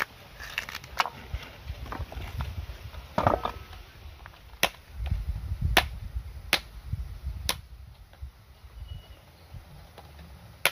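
Sharp knocks of a knife striking the hard, woody shell of a wood apple to crack it open, several strikes about a second apart.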